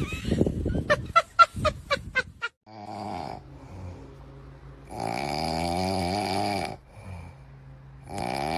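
A dog snoring in long, wavering breaths that come about every three seconds, after a quick run of clicks or taps in the first two seconds.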